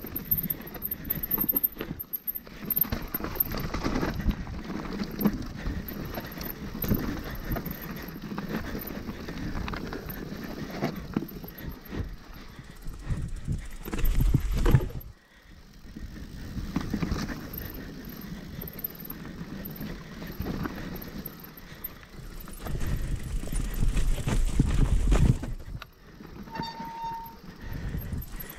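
Hardtail mountain bike riding over a rough dirt trail: tyres crunching and the frame and drivetrain rattling with frequent small knocks, and wind buffeting the microphone. A brief squeal comes near the end.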